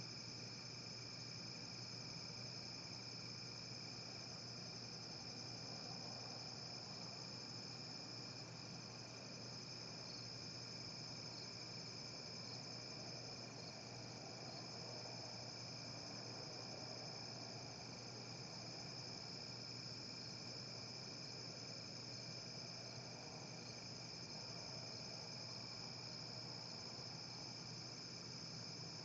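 Steady night chorus of crickets, a continuous high-pitched trill, over a faint steady low hum.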